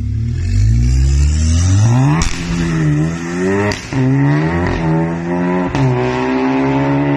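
Volkswagen Golf MK7 GTI's turbocharged 2.0-litre four-cylinder accelerating hard through the gears on a de-catted valvetronic exhaust. The engine note rises, then drops and climbs again after each upshift, with a sharp crack at each of three shifts.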